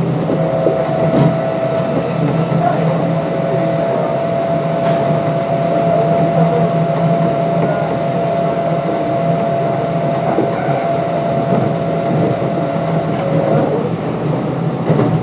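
Kintetsu 1259 series electric train (Hitachi GTO-VVVF) running between stations, heard from on board: a steady rumble of the running gear. Over it runs a steady two-note whine that cuts off about a second and a half before the end.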